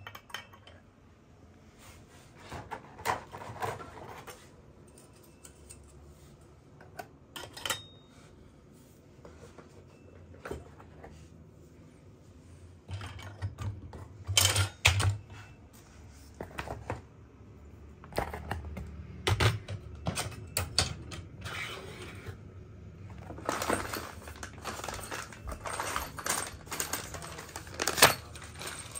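Steel parts of a Vogels TVM 5845 TV wall mount being handled and set down on a wooden floor: scattered clinks and knocks of metal on metal and on the floorboards. The handling gets busier in the last few seconds, with one loud knock near the end.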